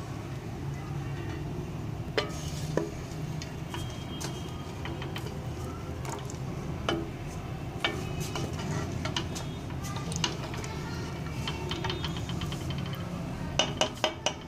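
A ladle clinking against a cooking pot as it stirs a thin curry: a sharp clink every few seconds and a quick run of clinks near the end, over a steady low hum.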